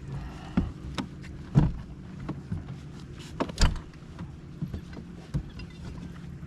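Sharp knocks and thumps on a bass boat's deck and compartments, several in a few seconds with the loudest about a second and a half in and again past halfway, over a steady low hum.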